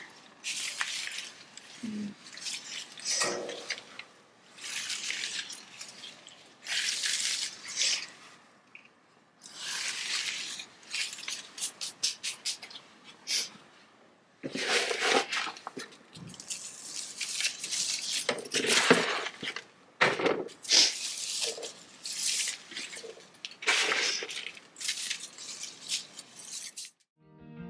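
Potting soil and a plant being handled by hand while planting into a container: irregular bursts of rustling and scraping as soil is scooped, pushed around the roots and pressed down, with leaves brushing.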